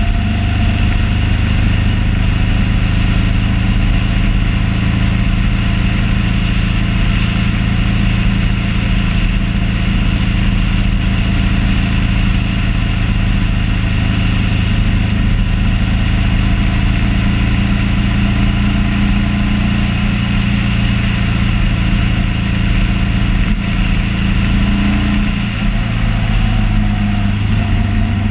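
Motorcycle engine running steadily at cruising speed, with road and wind noise. About 25 seconds in the engine note briefly drops and then comes back up.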